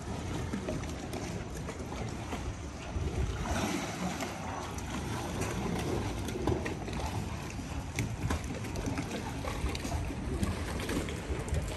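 Harbour ambience: a steady, uneven wash of wind on the microphone and lapping water, with a few faint knocks.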